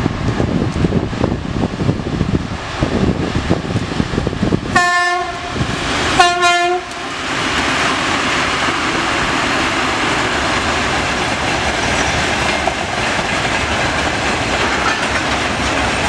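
A 2TE116 twin-section diesel locomotive passes with its engines running, then sounds its horn in two short blasts about a second and a half apart. After that comes the steady rolling noise of a long train of tank wagons going by on the rails.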